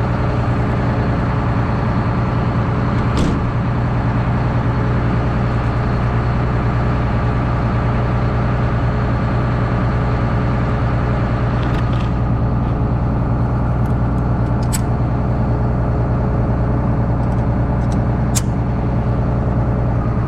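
Heavy engine idling steadily, with a few short sharp clicks or taps over it.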